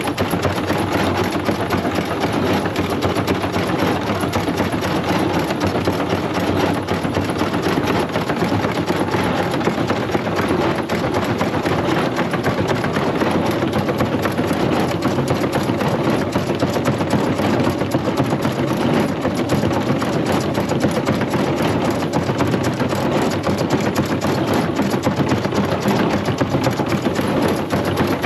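Small wheat threshing machine running steadily as sheaves are fed in: a continuous mechanical drone with a fast, fine rattle that does not let up.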